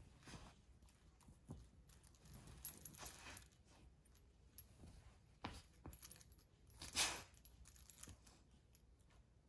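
A Labrador puppy mouthing and tugging at a knotted sock on a fabric cushion: faint rustling and chewing with a few light clicks and clinks, the sharpest about seven seconds in.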